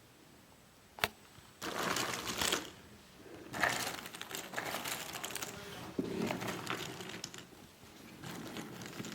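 Cardboard jigsaw puzzle pieces and their packaging being handled: rustling and clattering that comes and goes in several stretches, with one sharp click about a second in.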